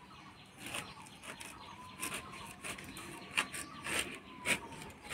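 Whole young jackfruit being cut on a boti blade, the rind and core giving way in a series of about eight short, irregular cutting strokes.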